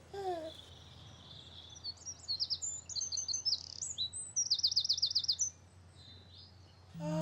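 Songbirds chirping and trilling over a faint background hum: a short falling call right at the start, then a run of quick, high trills and chirps that is loudest in the middle and dies away about two seconds before the end. A chiming xylophone-like tune comes in at the very end.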